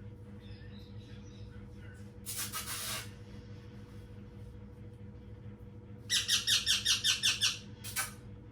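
A small green parrot squawking while being hand-fed. A short raspy burst comes about two seconds in, then a loud run of about eight quick squawks about six seconds in, and one more short squawk near the end. The calls are typical of a hand-fed parrot begging for food.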